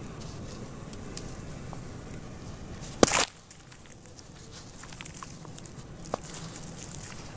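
Wet, dried-clay lumps crumbling between the hands, with crumbs dropping into a basin of water: a steady crackling with scattered small clicks and one loud, brief crunch about three seconds in.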